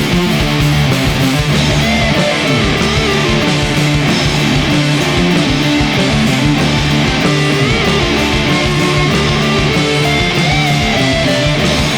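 Stoner rock band recording: distorted electric guitars, bass guitar and drums playing a heavy riff, with a lead guitar holding and bending notes over it.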